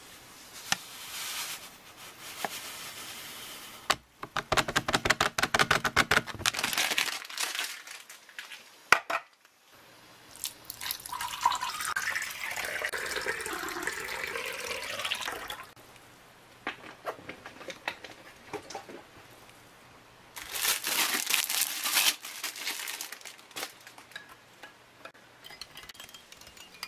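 Drink-mix packet rustled and powder shaken into a drinking glass, then water poured into the glass, the sound of the pour changing pitch as the glass fills. Near the end a spoon stirs the drink, with light clicks against the glass.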